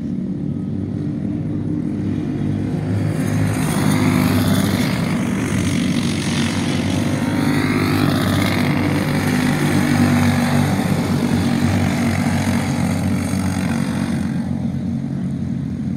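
Several racing go-kart engines running at speed. The sound swells louder and brighter from about three seconds in as the pack comes close, with engine notes rising and falling, then eases off near the end.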